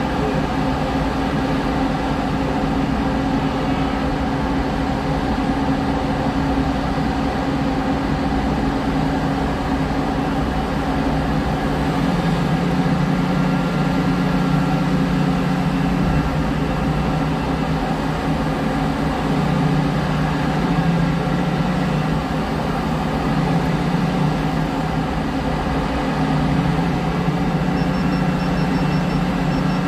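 Liebherr R 9350 mining excavator's large diesel engine running steadily, a loud machine drone. A second, lower hum comes in about twelve seconds in and drops out and back a few times.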